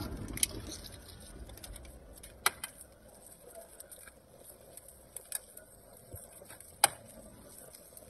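Boiled eggshells being cracked and peeled by hand: a few scattered small crackles and clicks, the sharpest near the end.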